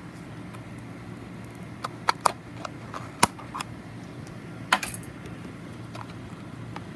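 A run of sharp clicks and light clatters from small items and packaging being handled, grouped between about two and four seconds in with another near five seconds, over a steady low background hum.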